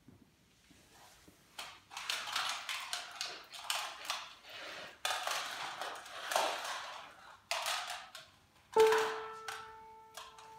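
Rustling and clattering of objects being handled, then about nine seconds in a single musical note strikes sharply and keeps ringing steadily.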